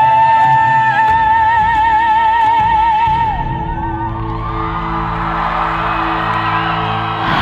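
A high voice holds one long note with a wide, fast vibrato over backing music, stopping about three seconds in; then audience cheering and whooping rises over the steady backing music.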